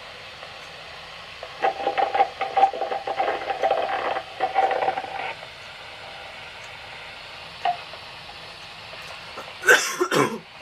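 NOAA Weather Radio receiver hissing with static. About a second and a half in, a few seconds of choppy, broken-up broadcast voice come through. Near the end there is a short, loud burst that falls in pitch.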